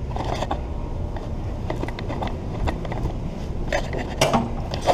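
Handling noise from a camera being carried by hand: a low rumble with scattered clicks and knocks, busier near the end.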